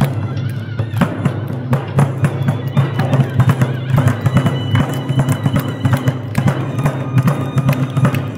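Korean traditional music for the Jindo drum dance, with frequent sharp strikes on a buk barrel drum over sustained low tones.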